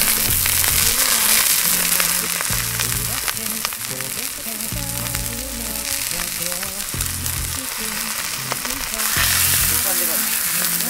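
A thick beef steak searing in an iron frying pan over a wood fire, a steady loud sizzle that swells a little again near the end.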